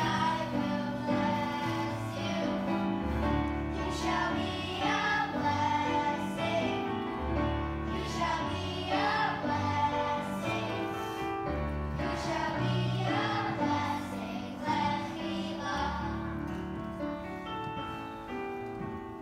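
A song with singing voices over a steady bass line, played for a children's circle dance.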